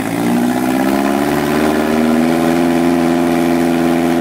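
Rock buggy's engine revving hard under load as the buggy climbs a rock ledge. The revs rise over the first second or so, hold steady and high, then fall away suddenly at the end.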